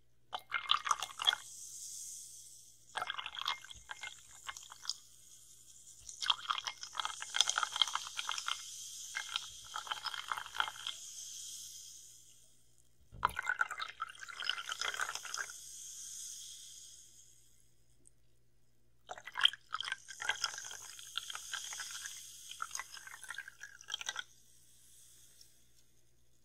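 Carbonated water fizzing and crackling right up close to a binaural microphone, in five bursts of crackle and clicks, each trailing off into a soft high hiss. A sharp knock comes about halfway through.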